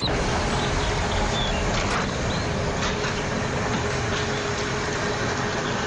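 Mercedes-Benz car driving slowly along a dirt lane: a steady engine hum with tyres rolling on dirt and gravel.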